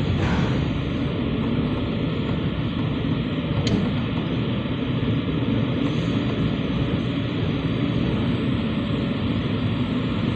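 Steady rushing noise of an automatic car wash's water spray hitting the car, heard from inside the car.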